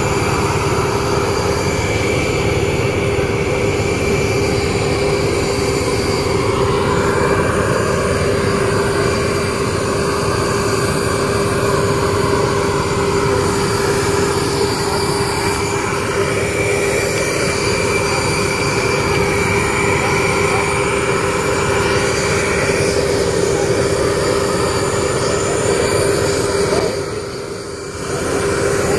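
Auxiliary power unit of a parked Airbus A319 jet airliner running: a steady whine over a rumble, briefly muffled near the end.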